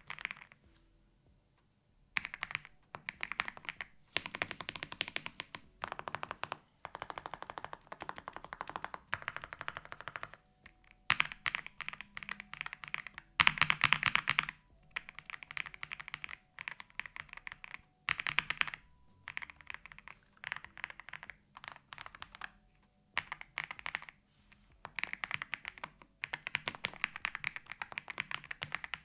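Aula F108 full-size mechanical keyboard being typed on fast in a typing test: runs of rapid key clacks in bursts of a second or two, broken by short pauses, starting about two seconds in.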